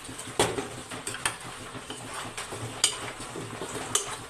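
A metal spoon stirring a wet masala and fish mixture in a steel pot, knocking against the pot's side with a few sharp clinks, the loudest one near the start.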